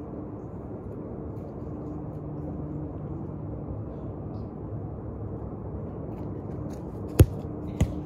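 Steady low outdoor rumble, then one sharp, loud thud of a soccer ball being struck about seven seconds in, and a smaller knock just after.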